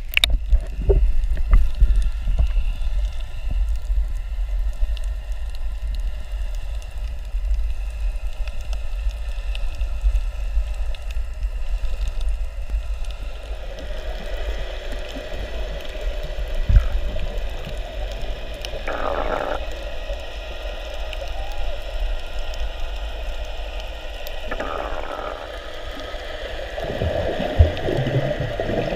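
Muffled underwater sound heard through a camera's waterproof housing: a steady low rumble of moving water, with gurgling and bubbling that swells a few times, most strongly near the end as fins kick up bubbles.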